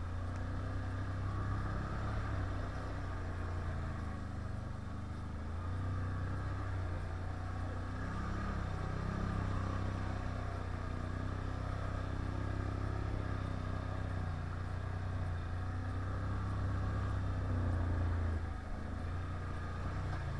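Can-Am 1000 quad's V-twin engine running under way on an offroad ride, its note rising and falling with the throttle.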